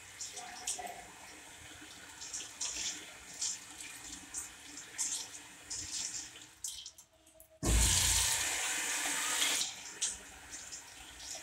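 Tap water running over hands and splashing into a stainless-steel sink as they are washed. The water stops briefly about seven seconds in, then comes back with a louder gush for about two seconds.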